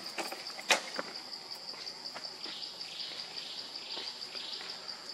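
Steady high-pitched insect drone with a fast, even pulse, broken by a sharp loud click less than a second in and a few fainter ticks.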